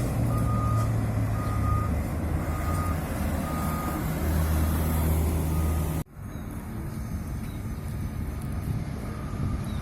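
Tour bus diesel engine running with its reversing beeper sounding a short single-pitched beep about once a second. About six seconds in the sound cuts abruptly to a different stretch of engine and traffic noise.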